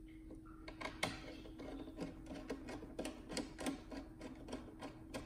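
Plastic anti-static bag crinkling as a motherboard is slid back into it: a quick, irregular run of sharp crackles over a faint steady hum.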